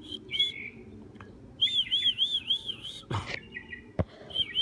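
A songbird singing: a few short whistled notes, then a quick run of about five repeated rising-and-falling notes, and another run near the end. A sharp click sounds about three seconds in.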